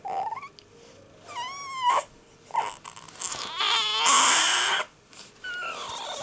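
Young infant fussing and starting to cry: a few short whiny cries with rising and falling pitch. They build to a louder, strained wail about three and a half seconds in, followed by more fretful crying.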